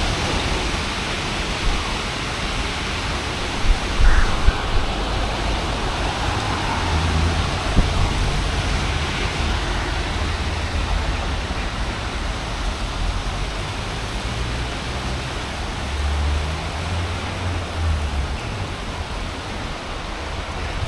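Heavy thunderstorm rain pouring down as a steady rushing hiss, with a couple of low rumbles about seven and again about sixteen seconds in.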